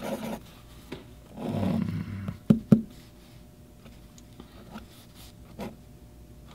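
Flexible italic nib of a vintage hard-rubber safety fountain pen scratching lightly on paper, with two sharp taps of the nib on the page about two and a half seconds in.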